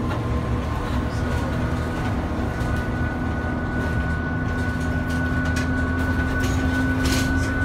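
Airport rental-car shuttle bus driving along, heard from inside: a steady low rumble of engine and road with a constant whine over it, and a few brief rattles near the end.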